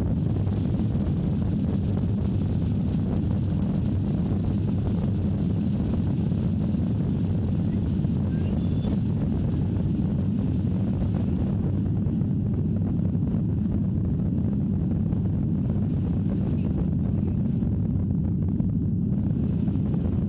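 Boeing 737 jet engines at take-off thrust during the take-off roll, heard from inside the cabin as a loud, steady, low rumble together with the rumble of the wheels on the runway.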